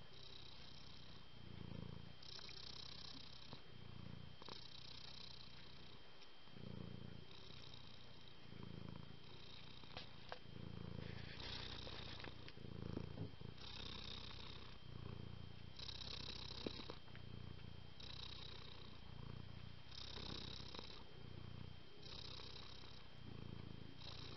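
Domestic cat purring close up, the purr swelling and fading in a steady cycle about every two seconds with its breathing.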